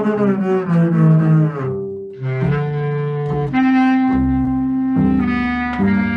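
Bass clarinet and double bass improvising together: a dense, wavering cluster of notes for about two seconds, a brief dip, then long held tones.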